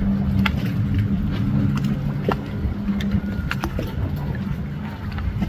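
Motorboat engines running: a steady low drone whose pitch shifts up and down, with a few short sharp clicks.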